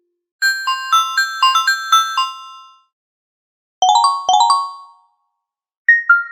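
Three electronic notification chimes, one after another. First a quick tinkling run of about eight bell-like notes, then two fast rising runs of three notes each, then a two-note ding-dong, high then lower, that rings on near the end.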